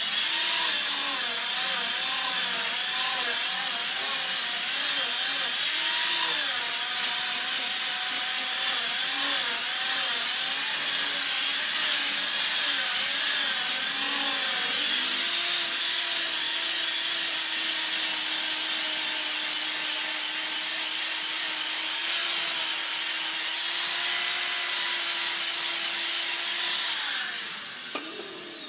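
Electric angle grinder with a sanding disc switched on and sanding wood: its high whine dips in pitch again and again as it is pressed into the work, then runs steady. Near the end it is switched off and winds down with a falling whine.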